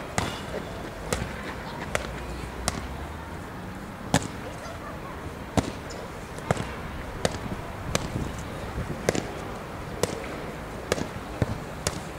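Boxing gloves striking hand-held focus mitts: sharp slaps coming about once a second, sometimes in quick pairs.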